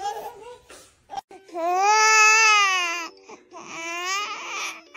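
Young infant's loud, high vocal squeals: one long drawn-out 'aah' lasting about a second and a half, then a second, shorter one.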